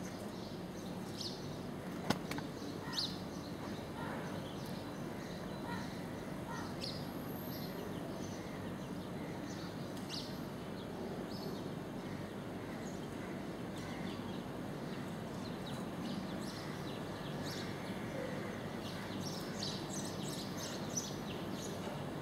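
Birds chirping now and then over a steady outdoor background noise, with a single sharp click about two seconds in.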